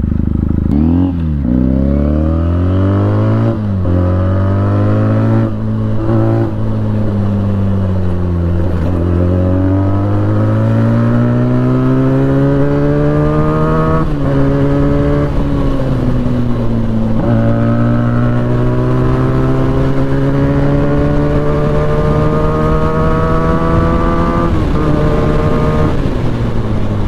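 Benelli 300 parallel-twin motorcycle engine accelerating hard through the gears. The pitch climbs steadily in each gear and drops sharply at each of several upshifts.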